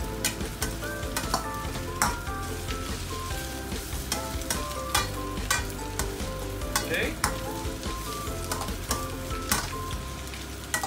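Egg noodles sizzling as they are stir-fried in a stainless steel wok, with a metal spatula scraping and clinking against the wok about once or twice a second.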